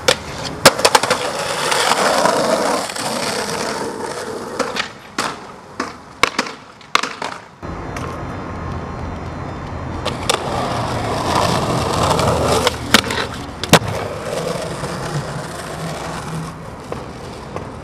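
Skateboard wheels rolling over pavement, with repeated sharp clacks of the board popping, landing and hitting the ground.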